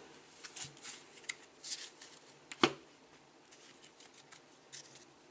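Trading cards being handled and slid across a surface: short, soft rustles and scrapes, with one sharp tap about two and a half seconds in.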